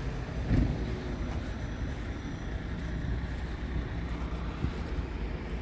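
Scania R580's V8 diesel engine idling steadily, with wind buffeting the microphone and a single thump about half a second in.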